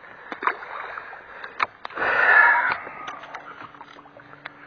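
Lake water splashing and lapping close by, loudest in a short rush about two seconds in, with scattered light clicks. A faint low hum comes in about three and a half seconds in.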